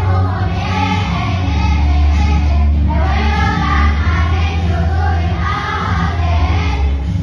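Children's choir singing over a backing track with a heavy bass line.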